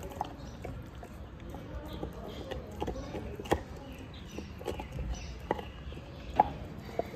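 A Labrador gnawing a large bone, its teeth making scattered sharp cracks and clicks on it, the loudest about three and a half and six and a half seconds in.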